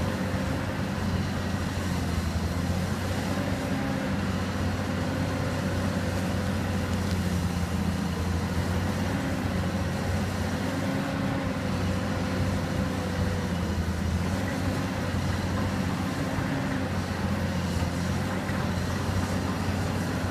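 Caterpillar hydraulic excavator's diesel engine running steadily, its pitch dipping and rising slightly.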